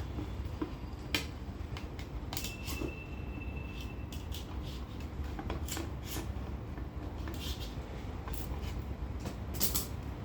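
Taped plastic packaging of a cookie pack being worked open: scattered crinkles and sharp crackles, with a brief thin squeak of tape pulling about two and a half seconds in, over a steady low hum.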